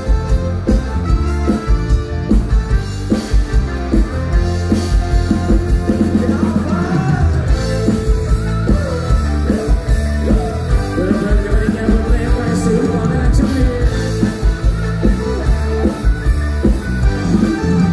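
A male singer singing into a microphone over loud amplified rock-style band music, with guitar and a steady drum beat, through stage PA speakers.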